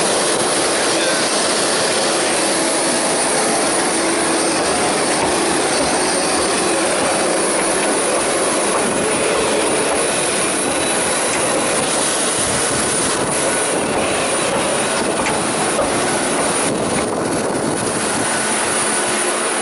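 Parked jet airliner running up close, a loud, steady jet rush and whine.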